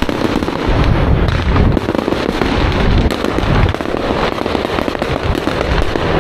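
Fireworks going off continuously: a dense run of crackles and pops over low booming.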